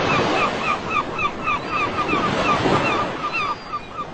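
Ocean surf washing onto a beach as a dense, steady rush of water. Over it, a bird calls in short downward notes, about three a second, that thin out near the end.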